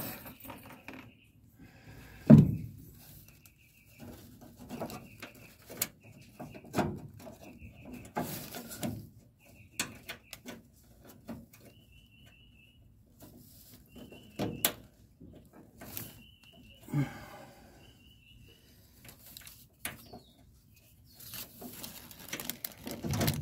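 Scattered knocks, taps and clicks of a car headliner tack strip and its push-in pins being fitted by hand against the rear-window opening of a 1968 Camaro's body, the loudest knock about two seconds in. Short high chirps, repeated in little runs every second or two, sound in the background.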